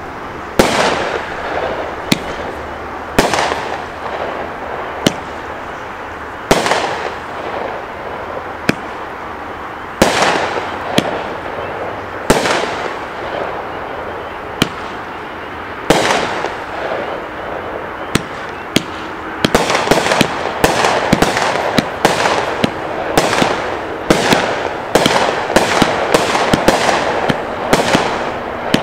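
Brothers Pyrotechnics 'Wind Up' 500-gram firework cake firing. Single shots come a second or two apart, each a sharp bang with a fading tail. About two-thirds of the way through it turns into a rapid volley of many shots.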